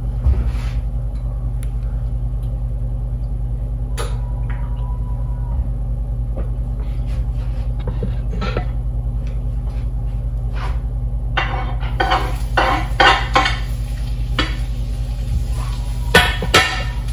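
Pan and kitchen utensils clattering, with scattered knocks and clinks that grow busier in the last few seconds, as oil is poured into a hot frying pan and garlic is dropped in. A steady low hum runs underneath.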